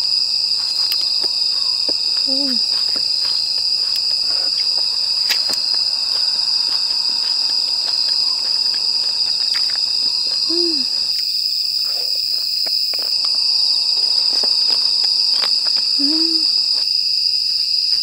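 A steady chorus of night insects, mainly crickets, a continuous high-pitched ringing. Over it come a few light clicks of chopsticks against dishes and three short hums from the person eating.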